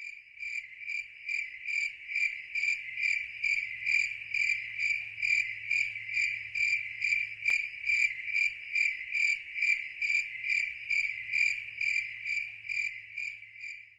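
Evenly repeating high-pitched chirping, about three chirps a second, like a cricket, with a single faint click about halfway through.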